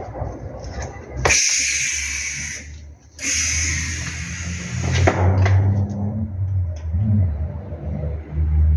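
MIG welder arc on CO2 shielding gas, crackling and hissing in two short runs of about a second and a half each, during an overhead weld. A steady low hum follows after about five seconds.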